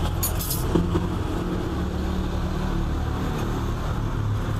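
Steady low rumble of a motor vehicle's engine running close by on the street, with a few light clicks near the start.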